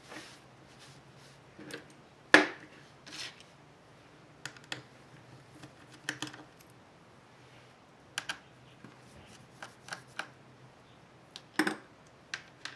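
Scattered small clicks and taps of hands handling a VIZIO CT15 laptop's display assembly, the LCD panel in its plastic back cover, with a sharper knock about two seconds in and another near the end.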